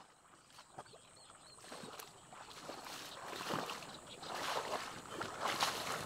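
Footsteps wading through shallow marsh water and wet grass: irregular sloshing and splashing that grows louder and more frequent as the wader comes closer.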